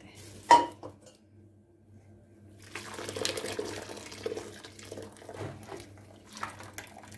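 Hot cooking water draining through a plastic colander of boiled mushrooms and splashing into the bowl below, starting a little over two and a half seconds in. A single sharp knock comes about half a second in and is the loudest sound.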